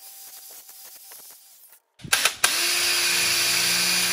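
Faint scraping strokes on metal, then, after a brief gap about two seconds in, a power drill starts with a couple of clicks and runs steadily at speed on the metal part held in the bench vise. The drill is much the loudest sound.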